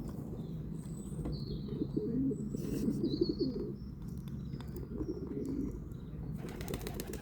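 Doves cooing over and over in low, wavering calls, with a few faint high bird chirps.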